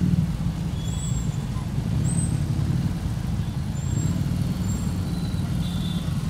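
A group of large cruiser motorcycles running at low speed, a steady low engine rumble.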